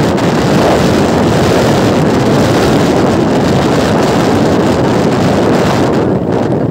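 Steady wind noise on the microphone of a Hero HF motorcycle riding at highway speed, with the bike's engine and road noise mixed in.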